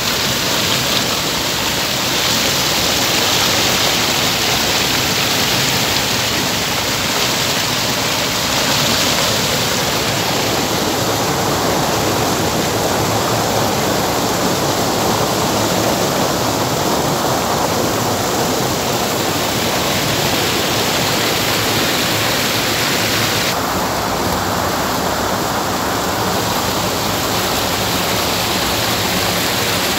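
Fast-flowing water rushing and splashing, a loud steady noise with no break.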